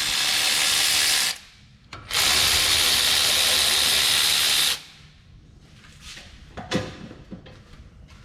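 A power tool runs twice in two steady bursts of about two seconds each, backing out the two 14 mm brake caliper bolts. Quieter small metal clicks and knocks follow as the bolts come free.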